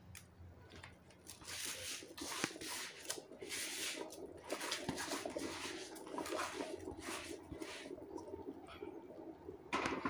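Washed, drained rice being tipped into a pot of boiling biryani water in a series of wet, splashing pours.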